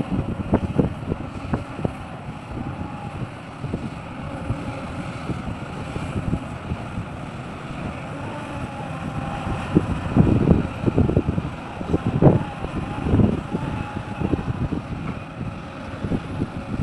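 Sumitomo SH350 excavator working while loading a dump truck: a steady engine rumble with scattered knocks and clunks, and several louder surges of noise about ten to thirteen seconds in.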